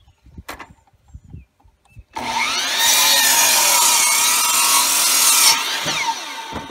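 Electric miter saw starting about two seconds in, its motor spinning up and the blade cutting through a 4x4 wooden post, then the motor winding down near the end.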